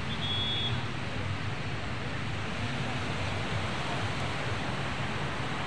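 Steady wash of surf and wind on the beach, with wind buffeting the microphone. A short high whistle-like tone sounds about half a second in.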